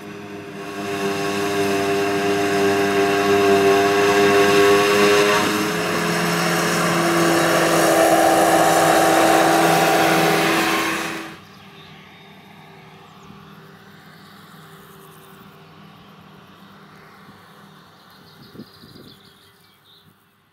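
Claas Jaguar forage harvester and Fendt 930 tractor with silage wagon working at close range: engines running under load with a steady whine, over a loud rushing hiss of chopped grass blown through the harvester's spout. The pitch of the whine shifts about halfway through. About eleven seconds in the sound cuts abruptly to a much quieter, more distant run of the same machinery, which fades out near the end.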